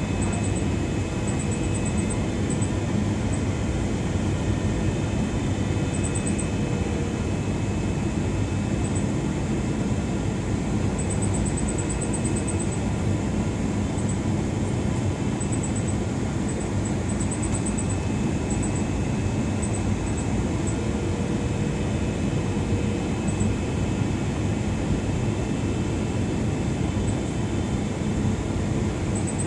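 Steady cabin noise inside a Boeing 777-300ER: a low, even rumble of its GE90 jet engines and airflow, with faint high ticking now and then.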